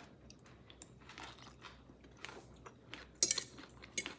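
A person chewing a mouthful of string beans, beef and rice, with small crunching and mouth sounds. A few sharper clicks near the end, the loudest about three seconds in, are a fork against a plate.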